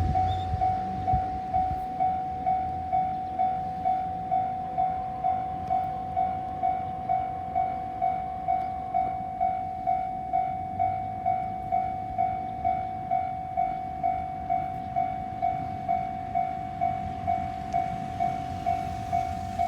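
Japanese level-crossing warning bell ringing, an electronic ding repeated evenly about two and a half times a second, over a low rumble: the crossing is closed for an oncoming train.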